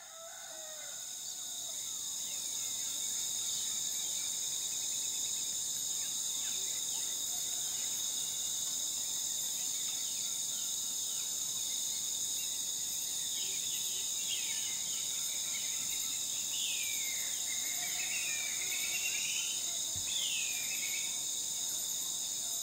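Night-time insect chorus, several steady, high-pitched drones at different pitches, fading in at the start. Over it birds give swooping, whistled calls, mostly in the second half.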